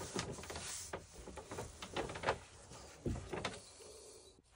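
Irregular rustling and scraping handling sounds with a few soft knocks, as an arm works in behind a stapled foil vapour barrier.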